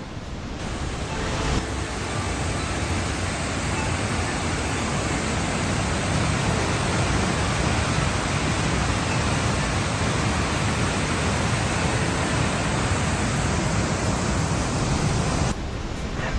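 Steady roar of a waterfall, an even rushing noise that cuts in just after the start and cuts off near the end.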